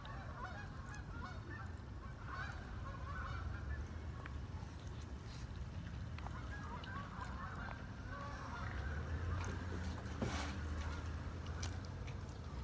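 A flock of geese honking repeatedly in the background, over a low steady rumble, with a few sharp clicks.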